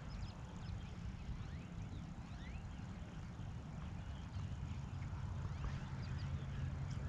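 Open-air ambience on the water: a steady low rumble of wind on the microphone, with faint scattered bird chirps.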